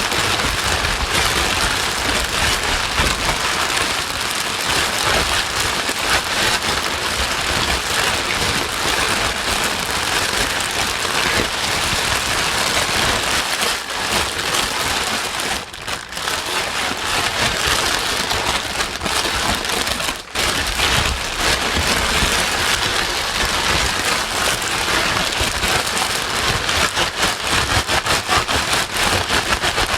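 Steady heavy rain, an even dense hiss of falling drops, with two short dips in level a little past the middle.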